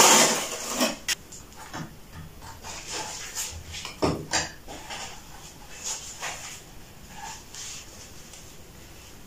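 Ceramic tile and tools being handled during tiling work: a loud scraping noise in the first second, then scattered knocks and clicks, the sharpest about one second and four seconds in, with light rustling between.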